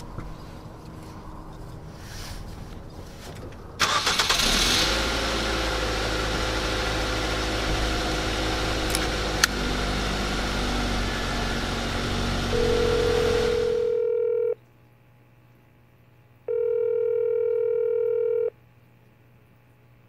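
A car engine starts about four seconds in and runs loudly, then cuts off abruptly. Then a telephone ringback tone sounds twice, two steady beeps of about two seconds each with a pause between.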